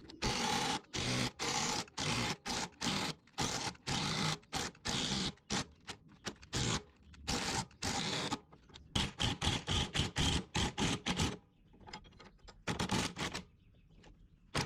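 Hand ratchet wrench working a bolt loose: repeated short rasping ratchet strokes, about one to two a second, quickening briefly partway through.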